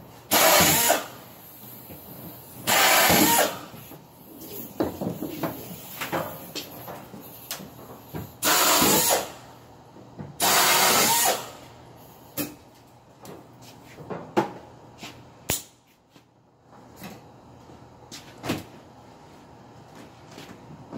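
Pneumatic drill drilling out rivet heads on an aluminium canoe: four bursts of about a second each, with hiss. After that come scattered short clicks and knocks.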